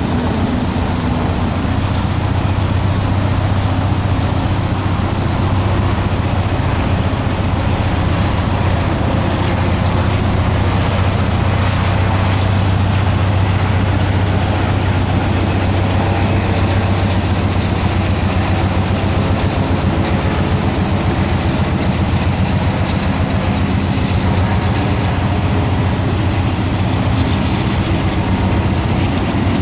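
CSX mixed freight train passing, a steady low drone of diesel locomotive engines over the continuous rumble of the train.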